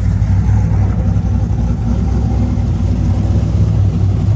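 Chevrolet Camaro's LS1 V8 running steadily at low revs, soon after a hard start.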